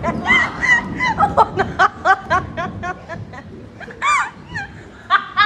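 Shrill, high-pitched laughter: a fast run of squealing rising-and-falling peals through the first three seconds, then two more bursts, one near four seconds in and one near the end.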